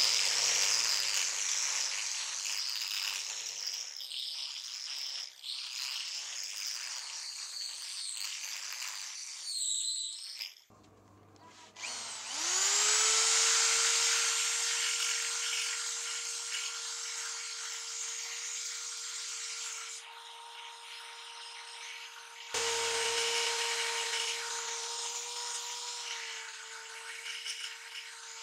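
Angle grinder with a sanding disc working the flat of a steel leaf-spring blade. After a short pause, a die grinder with a mounted pink grinding stone spins up about 12 seconds in and runs with a steady whine as it grinds the blade's curved edge.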